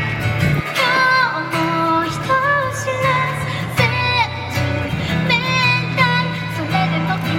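A woman singing a melody to her own acoustic guitar accompaniment.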